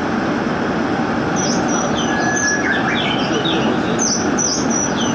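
Gwangju Metro Line 1 train running steadily through a tunnel, heard from inside the car. From about a second and a half in, a series of short, high, falling squeaks sounds over the running noise.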